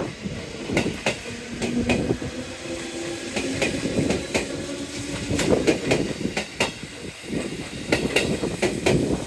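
JR Central 211 series 5000-subseries electric train pulling out of the station, its wheels clicking repeatedly over rail joints as the cars roll past, with a low steady hum for a few seconds near the start.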